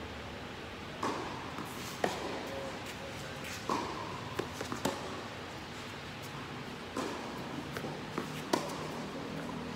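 Tennis rally on an indoor hard court: racket strikes and ball bounces, each a sharp pop with a short echo from the hall, coming every second or two, with light footsteps in between.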